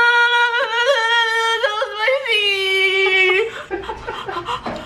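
A girl's voice holding a long, high wordless wail for about three and a half seconds, wavering and breaking briefly a few times before trailing off: a pained reaction to the burn of a hot pepper in her mouth.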